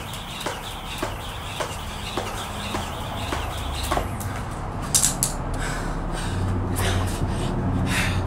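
A jump rope slapping a concrete floor in a steady rhythm of nearly two strokes a second, single unders, until about four seconds in. Then a few louder, irregular knocks and shuffling as the jumper stops and gets down on a floor mat.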